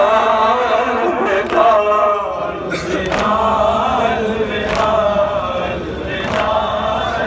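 A group of men chanting a Shia mourning noha in unison, with a loud, sharp slap of matam (hands beating chests) about every one and a half seconds marking the beat.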